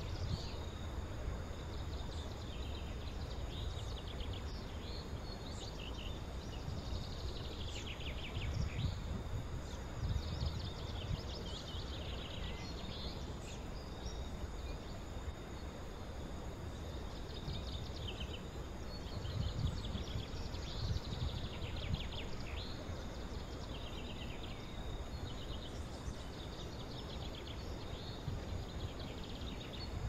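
Outdoor countryside ambience: songbirds chirp and trill in short, repeated phrases over a steady high insect drone. Under them runs a low rumble that swells now and then.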